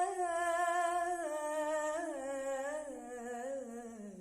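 A young girl's unaccompanied singing voice holds a long steady note, then after about a second descends in wavering, ornamented steps to a lower pitch, drawing out a word of an Arabic devotional chant.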